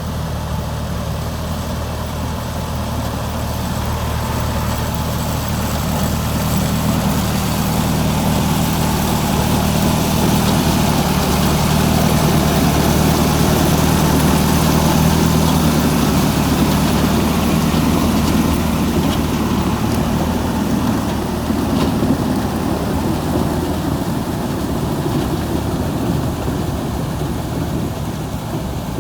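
Pumpkin seed harvesting machine running steadily with its engine drone, growing louder for a while and then easing off somewhat near the end.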